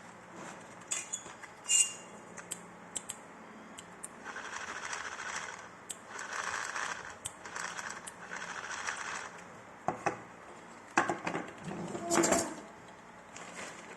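Remote-control toy car: light clicks and clattering, with three runs of about a second each of a hissing whir from its motor and wheels, and a louder clatter near the end.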